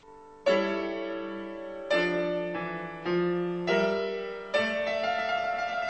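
Piano playing slow, sustained chords. A new chord is struck about every second, beginning half a second in, and each rings and fades before the next; single notes carry on over the last second.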